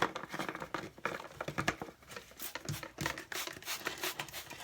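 Light clicks, taps and rustling of hands handling things at a sink drain.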